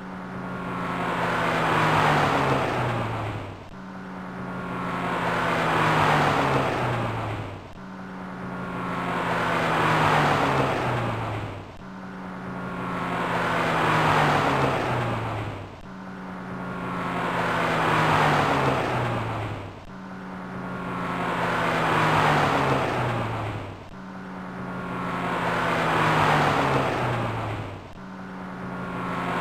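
A BMW E30 driving past, with the same pass repeated seven times at about four-second intervals. Each time the engine note swells to a peak as the car goes by and falls steadily in pitch.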